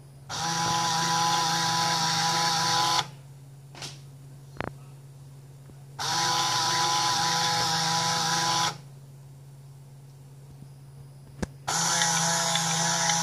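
Motor and gearbox of an Atlas HO-scale turntable drive unit whining steadily in three spells of about two and a half seconds each, stopping and starting as the turntable indexes from track to track. A low hum continues through the pauses, and a sharp click comes twice between spells.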